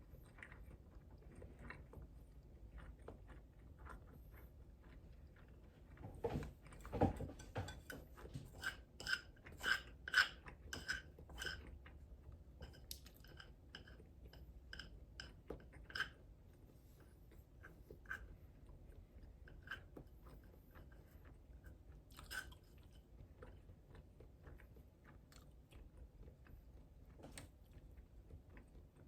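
A person chewing food close to the microphone, with wet clicks and crisp crunches. A run of louder crunches comes a few seconds in and lasts about six seconds, then the chewing goes on more quietly with an occasional louder crunch.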